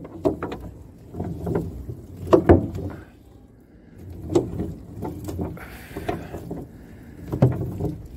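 Trammel net being hauled in by hand over the bow of a small boat: irregular knocks and slaps as the wet mesh and its plastic floats drop onto the hull, over a steady low rumble.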